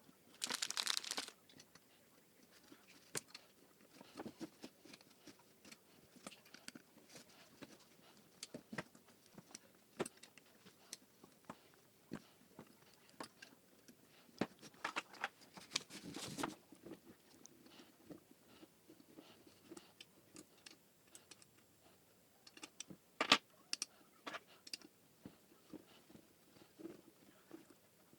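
Office chair parts being handled during assembly: scattered light clicks, taps and knocks of plastic and metal pieces, with short bursts of packaging rustling about a second in and again around the middle.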